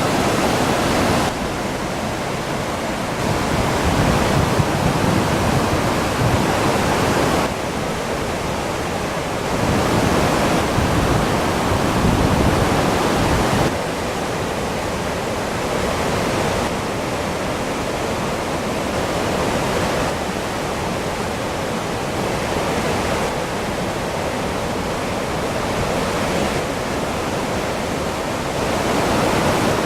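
Naena Falls waterfall pouring: a steady, loud roar of falling water. Its level and tone shift abruptly every few seconds.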